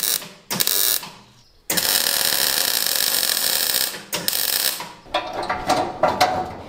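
Demolition breaker hammering concrete in short bursts of about half a second, then one longer burst of about two seconds, ending in scattered clatter and clinks.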